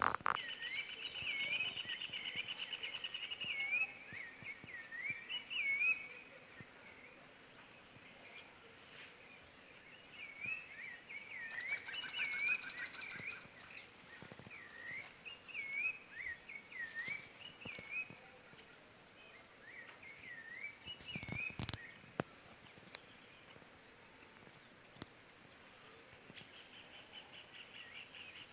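Rufous-bellied thrush (sabiá-laranjeira) singing: short whistled notes that dip and rise, repeated over and over, with a rapid trill at the start and again near the end. A steady high insect drone runs underneath, and a loud buzzy trill cuts in about twelve seconds in for two seconds.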